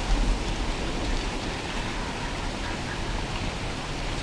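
Low rumble of a muzzleloader shot fading out over the first half second, then steady rushing wind noise on the microphone with small low gusts.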